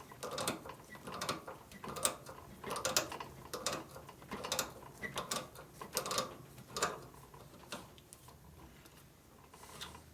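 Knipex pliers biting on a sheared steel set screw and twisting it out of its hole in short repeated turns: metal scraping and clicking about once a second, dying away about seven seconds in.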